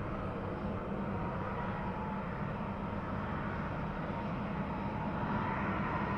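Jet airliner engines running, a steady rumble with a thin whine that rises a little near the end.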